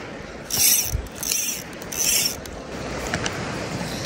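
Fly line being stripped in by hand through the rod guides: three short hissing pulls in a steady rhythm, with a soft low thump about a second in.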